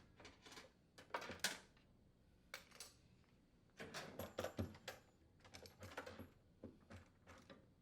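Washer tub suspension rods being slid out through the bottom of the outer tub: a string of irregular light clicks, knocks and short scrapes as the rods shift and rattle against the tub.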